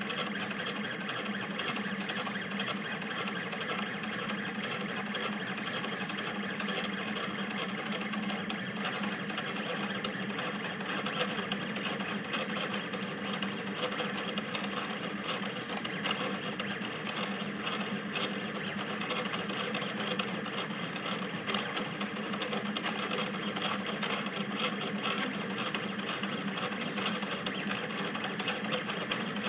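Rostock delta 3D printer running a fast print. Its stepper motors whir and buzz continuously, the sound shifting with each quick change of direction of the print head.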